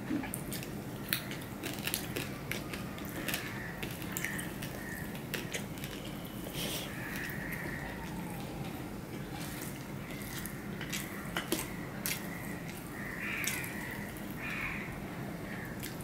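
Close-up eating sounds of a man eating rice and fried fish with his hand: chewing and mouth clicks, with fingers working the food on a steel plate. Many short clicks come irregularly, over a steady low hum.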